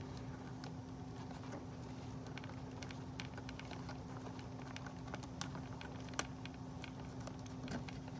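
Faint scattered clicks and light taps of cardboard and plastic packaging being handled as a boxed doll and its stand are worked free, with two sharper clicks a little past the middle, over a steady low hum.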